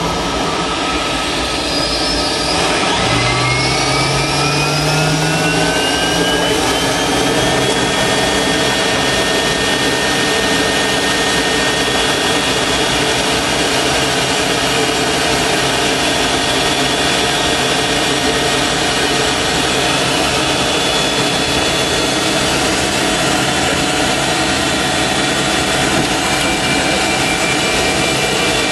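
An AH-64D Apache's auxiliary power unit, a small gas turbine, starting up: its whine rises in pitch over the first several seconds, then settles into a steady high whine over a constant rush as it reaches running speed.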